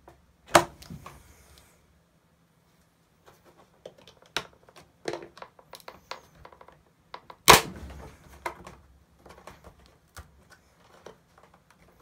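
Scattered sharp clicks and knocks of hand tools working hard plastic while a piece of the door's speaker mounting is scribed through. There is a short quiet stretch about two seconds in, and the loudest knock comes about seven and a half seconds in.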